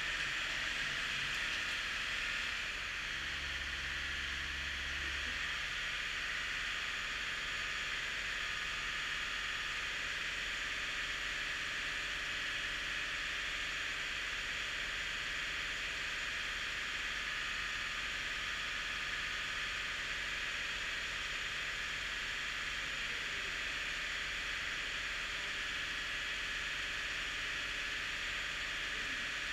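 Ford 7000 tractor's four-cylinder diesel engine idling steadily just after a cold start, heard as an even hiss over a low steady hum, settling slightly about three seconds in.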